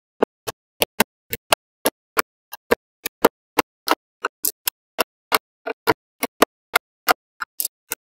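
Small magnetic balls clicking sharply into place as blocks of them are snapped onto a wall, a quick string of separate clicks at about three or four a second.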